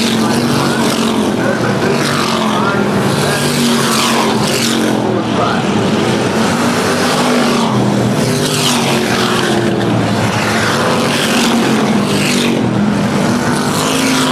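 A field of street stock race cars running hard through a turn, engines blending in a steady din. Several cars pass close by in turn, each with a falling pitch as it goes past.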